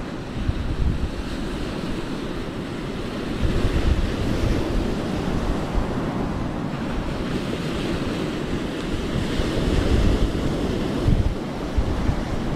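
Wind buffeting the microphone in uneven gusts, over the steady wash of surf.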